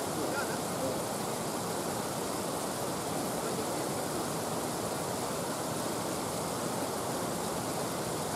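Steady rush of river water pouring over a weir, an even, unbroken noise.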